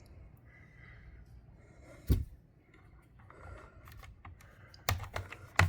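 Plastic clicks and knocks of a smoke alarm being handled on its ceiling mount while a small locking pin is pushed into its hole, the pin that stops the alarm twisting off. There is one sharp click about two seconds in and two louder ones near the end.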